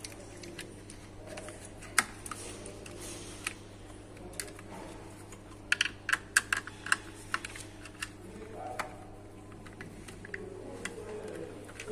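Irregular small sharp clicks and taps of a Phillips screwdriver and fingers working the terminal screws and plastic housing of a DIN-rail digital meter in a distribution board. The clicks come thickest about six to seven seconds in, over a steady low hum.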